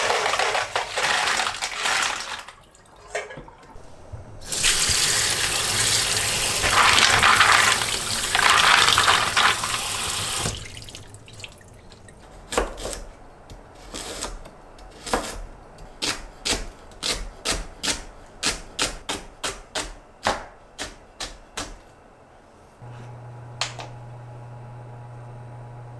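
Kitchen tap running and splashing as mussels are poured into a stainless-steel colander in the sink and rinsed. Then comes a long run of sharp clicks, one or two a second, as the mussel shells knock against each other and the colander. Near the end a low steady hum starts.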